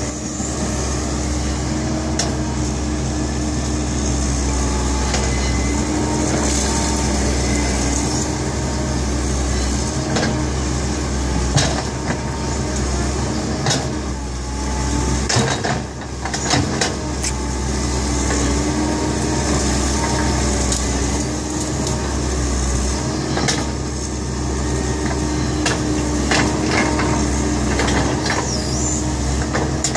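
Kobelco hydraulic excavator's diesel engine running steadily, with scattered sharp knocks and cracks from the machine at work.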